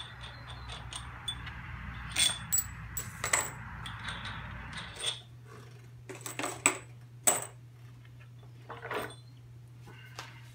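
Steel nuts and washers being taken off the threaded bolts of a clamping fixture and set down on a wooden board. They make irregular sharp metallic clinks, with a cluster about two to three and a half seconds in and another about six to seven seconds in.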